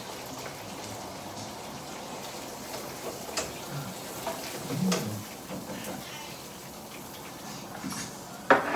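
Chicken frying in hot oil in a deep fryer: a steady crackling sizzle, with a few light clicks and a louder clatter near the end.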